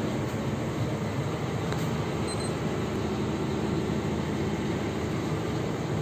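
Steady low mechanical drone inside the passenger cabin of a parked Scania K360IB coach.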